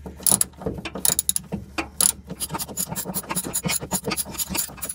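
Socket wrench ratcheting with a half-inch socket, a quick run of clicks as the nut on the truck's old rear bump stop is backed off.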